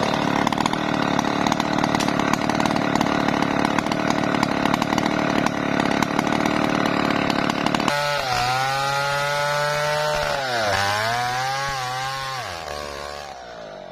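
MS070 two-stroke chainsaw cutting through a teak log, running steadily under load. About eight seconds in the sound changes to the saw revving with a clean pitch that dips and rises, then fades out near the end.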